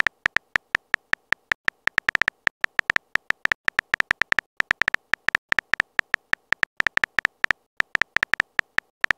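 Simulated smartphone keyboard typing sound: a rapid, uneven string of short, bright key-tap clicks, roughly five a second, as a text message is typed out.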